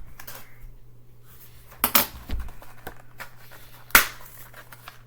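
Plastic product packaging being cut and pried apart with a knife: faint crinkling with a few sharp clicks and snaps, the loudest about four seconds in.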